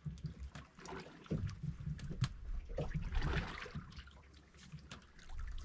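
Water lapping against a small boat's hull, with light clicks and knocks as a fishing reel is wound in. There is a brief splashy rush about three seconds in.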